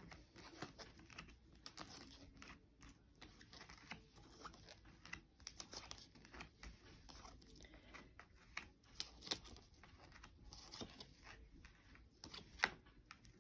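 Playing cards being shuffled and laid out by hand: faint, irregular flicks and rustles of the cards.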